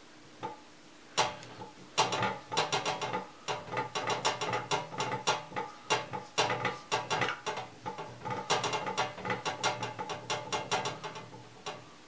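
Combination dial of a Sentry safe being spun by hand, its detents clicking rapidly in uneven runs as the combination is dialled in. A couple of single clicks come first, then dense clicking from about two seconds in, ending with one last click near the end.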